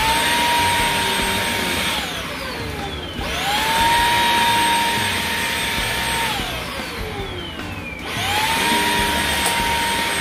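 Xiaomi Dreame XR cordless stick vacuum running over a curtain in three spells of two to three seconds. Each spell ends with a falling whine as the motor winds down, and the motor spins back up with a rising whine twice.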